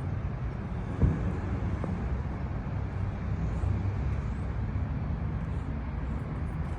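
Steady low rumble of motor vehicles, with a single thump about a second in.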